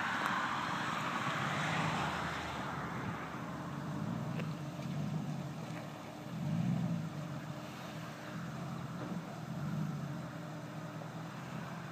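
A pickup truck's engine pulls through deep floodwater and mud, its note swelling and easing again and again. In the first few seconds the truck's wake makes a rushing wash of water.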